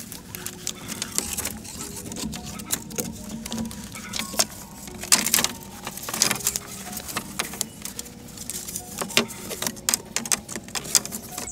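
Bamboo poles knocking, clicking and rattling against each other and against a wooden post as they are handled and tied in place. The sound is an irregular run of sharp taps, with a few louder knocks about five and six seconds in.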